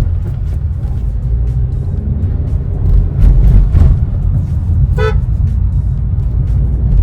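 Cabin noise of a Honda Elevate driving in city traffic: a steady low road and engine rumble, swelling briefly about three seconds in. A short car horn toot sounds outside about five seconds in.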